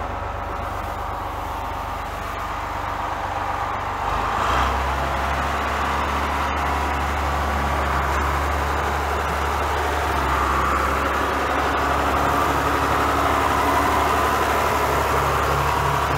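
John Deere 4030 tractor's diesel engine running steadily. It picks up and gets louder about four and a half seconds in, then holds there.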